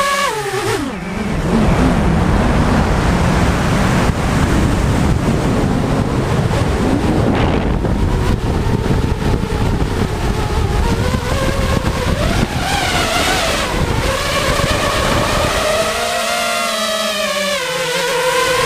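Quadcopter drone's electric motors: their steady whine drops sharply in pitch as the throttle is cut about a second in, then a rush of wind noise during the dive. From about twelve seconds in the motor whine returns, wavering up and down in pitch as the throttle is worked to pull out low.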